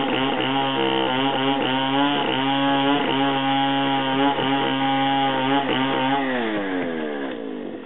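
Chainsaw engine running at high revs, then its pitch falling away as it winds down near the end.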